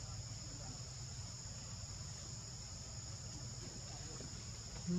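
Steady, high-pitched insect chorus over a low background rumble, with one brief, louder low sound near the very end.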